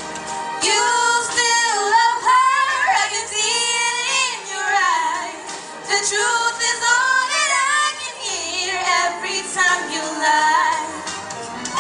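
Two young women singing a duet into handheld microphones, their voices sliding and bending through long, ornamented notes with no clear words.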